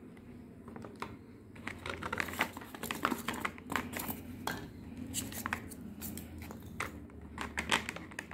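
Hands handling a foam block, small circuit boards and a clear plastic storage box, making irregular clicks, scrapes and rustles, busiest from about a second and a half in.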